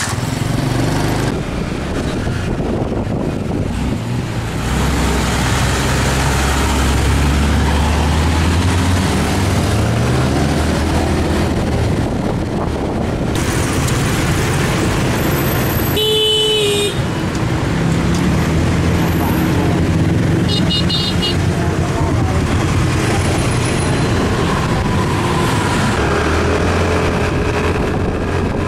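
Motorbike engine running in city traffic, rising in pitch as the bike speeds up, with the noise of other vehicles around it. A horn honks once, briefly, about halfway through.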